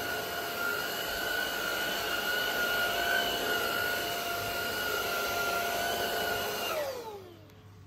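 Xiaomi Dreame V10 cordless stick vacuum running with a steady high whine. Near the end it is switched off and the whine falls away as the motor spins down.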